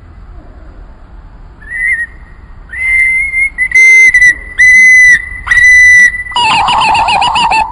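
A series of loud, steady whistled notes on one pitch, each held about half a second with a short slide at its start and end. The first is faint about two seconds in. Near the end the notes give way to a lower, wavering whistle.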